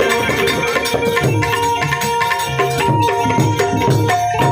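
Instrumental bhajan accompaniment: a harmonium holding and moving between notes over a fast pattern of hand-drum strokes, with no singing.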